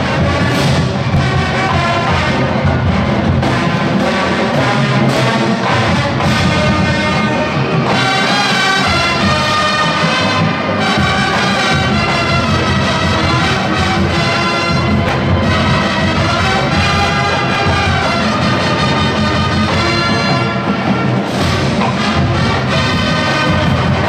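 College marching band playing at full volume: a brass section carrying the tune over drums.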